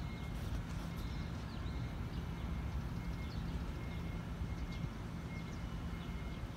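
Outdoor wind buffeting the microphone with a low, uneven rumble, while small birds give a few short, faint chirps.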